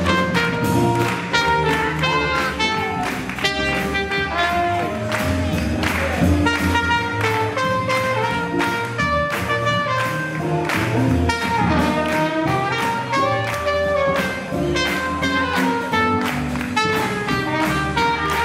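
Swing jazz band playing, horns carrying the melody over a steady beat, with onlookers clapping along.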